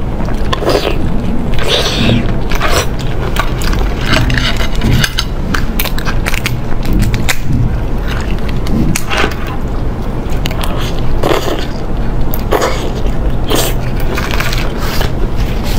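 Close-miked eating sounds of shellfish being peeled and chewed, a dense run of irregular crackles, clicks and wet smacks.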